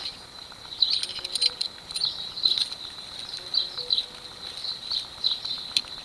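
Outdoor insects chirping: a steady high buzz with short chirps repeating about twice a second, plus a few faint clicks about a second in and again near the end.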